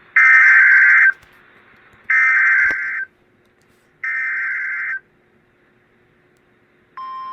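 Emergency Alert System SAME header: three harsh one-second bursts of digital data tones about a second apart, the coded header that opens an alert. Near the end the steady alert attention tone begins.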